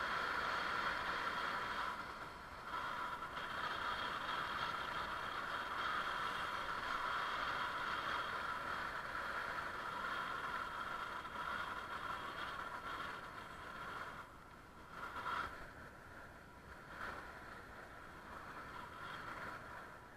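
Riding noise from a bicycle rolling along a paved path: a steady hiss and hum of tyres and passing air, with some light rattle. It eases off about two-thirds of the way through, with a brief swell just before.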